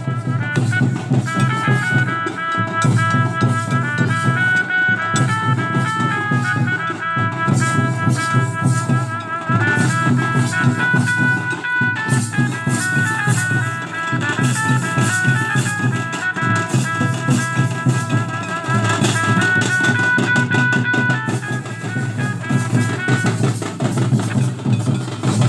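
Folk dance music: drums keep a steady beat under a stepping melody played on a high, reedy instrument, with a rattling percussion part.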